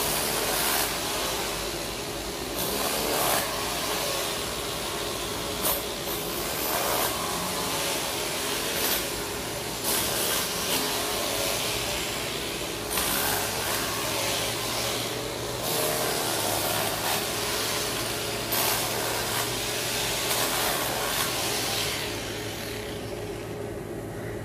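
A hand-held power tool running at a trench cut in the road, with a loud hiss that surges every second or two and stops shortly before the end. A steady machine hum runs underneath.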